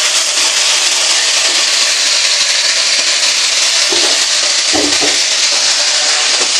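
Dried milkfish (daing na bangus) frying in hot oil in a wok: a steady, loud sizzle.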